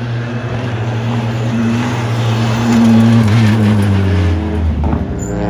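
Škoda Fabia R5 rally car's turbocharged four-cylinder engine running at a steady note as the car approaches and drives past. The note peaks about three seconds in, then drops in pitch as it goes by, with a burst of short sharp crackles near the end.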